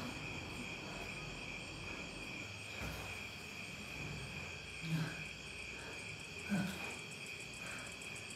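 Steady chorus of crickets chirping, a night-time ambience bed. Two brief soft sounds rise over it, about five and six and a half seconds in.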